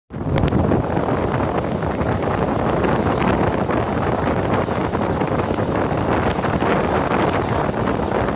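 Steady wind buffeting the microphone on the deck of a moving boat, with the boat's engine and churning wake underneath.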